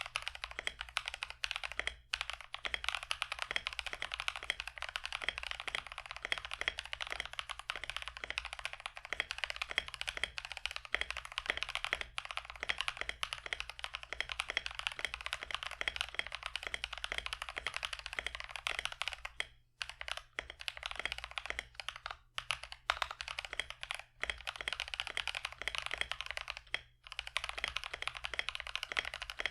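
Mechanical keyboard with Agile Moon linear switches (nylon housings, factory-lubed) being typed on fast and continuously: a dense stream of key clacks, broken by a few short pauses.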